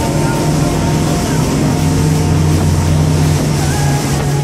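Mercury 350 supercharged outboard engines running steadily at low speed, a steady low drone, with water rushing along the hull and wind on the microphone.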